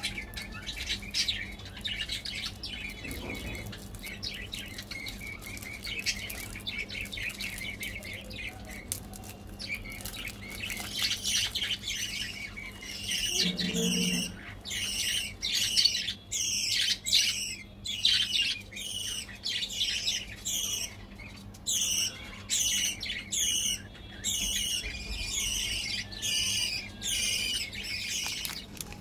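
Birds chirping, a rapid series of short, high calls repeated over and over, busiest from about ten seconds in.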